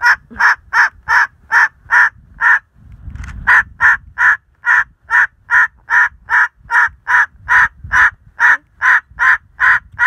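White cockatoo barking like a dog: a long run of short harsh calls, about two and a half a second, with a pause of about a second roughly two and a half seconds in.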